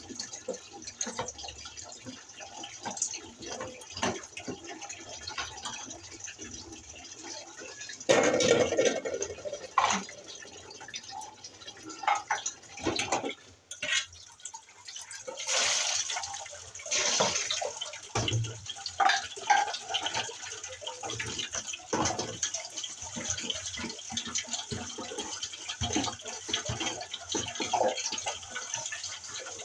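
Dishes being washed by hand: water splashing and pouring in plastic basins, with repeated clinks and knocks of utensils and basins. The loudest stretch comes about eight seconds in.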